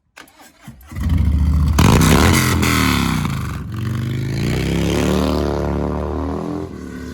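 Motorcycle engine, the 2020 Triumph Bobber's parallel twin, starting: a few faint clicks of cranking, catching about a second in, a couple of revs that rise and fall, then settling to a lower, quieter idle near the end.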